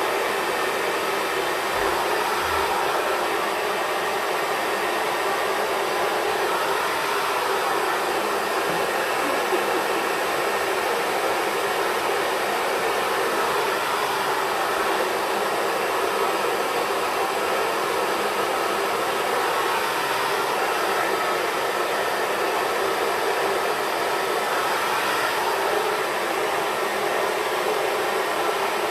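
Xtava Pro hair dryer running continuously, a steady rush of blown air that stays even without cutting out.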